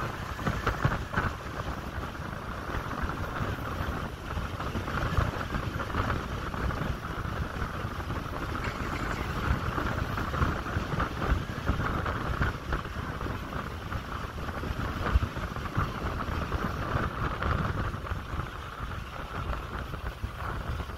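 Wind buffeting the microphone of a phone held out on a tall tower swing ride as it spins at height: a steady, rough rumble with a constant rushing noise above it.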